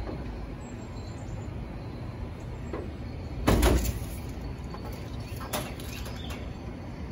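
A tape measure knocking against the side wall of an enclosed cargo trailer as it is shifted to a new spot: one short clatter about halfway through and a few faint clicks, over a steady low outdoor rumble.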